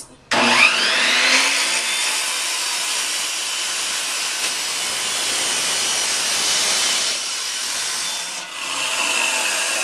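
Abrasive chop saw spinning up, then grinding through metal stock with a steady loud cutting noise. Near the end the cutting noise drops away and the free-spinning wheel's higher whine is left.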